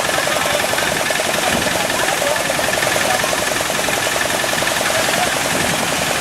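Boat engine running steadily with a fast, even chugging.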